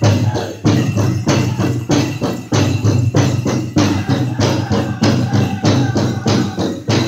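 Powwow drum music: a big drum struck in a steady, even beat, mixed with the jingling of the chicken dancers' leg bells.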